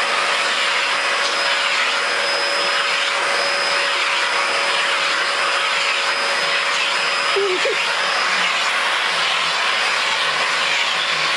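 Vacuum cleaner running steadily as its brush attachment is drawn over a cat's fur. A thin steady whine in its hiss drops out about eight seconds in.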